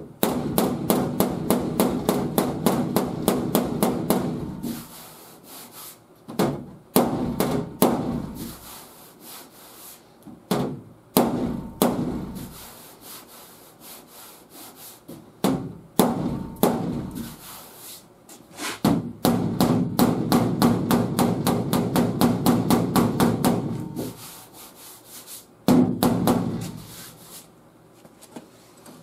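Body hammer lightly and rapidly tapping on sheet metal to knock down high spots before filler, in several runs of quick taps, several a second, with short pauses between.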